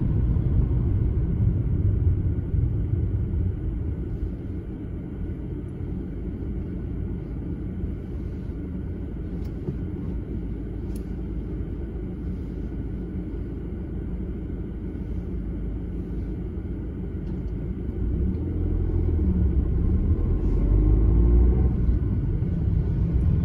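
Road and engine rumble of a moving car heard from inside the cabin, quieter through the middle and growing louder again near the end.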